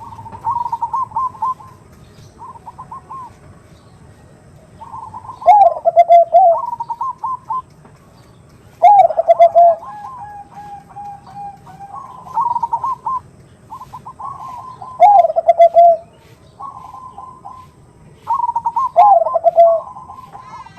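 Perkutut bangkok (zebra dove) cooing: repeated phrases of rapid, rolling coo notes, four louder ones dropping to lower drawn-out notes at their end.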